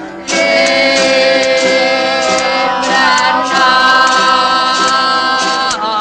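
Music with singing: long held notes that come in just after the start, with a brief downward slide in pitch near the end.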